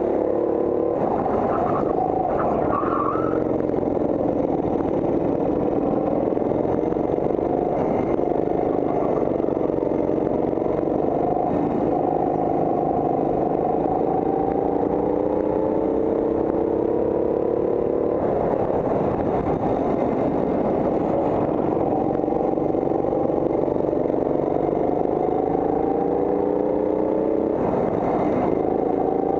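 Go-kart engine running under racing load, heard from the driver's seat, its pitch climbing on the straights and dropping back into the corners.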